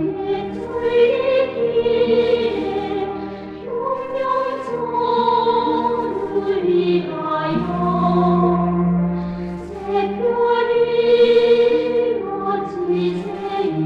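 Choir singing in long, held phrases over instrumental accompaniment.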